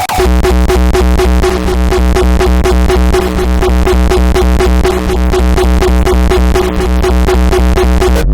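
Uptempo hardcore electronic music: a fast, steady, heavy kick-drum pulse with a pitched synth riff over deep bass, cutting off abruptly near the end.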